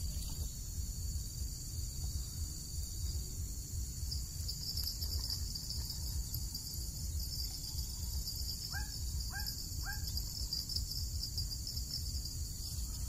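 Steady, high-pitched chorus of insects, over a low rumble. About two-thirds of the way through, a bird gives three short rising chirps about half a second apart.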